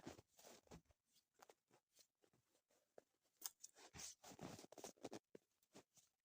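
Near silence with faint, scattered clicks and scrapes of handling, growing busier in the second half.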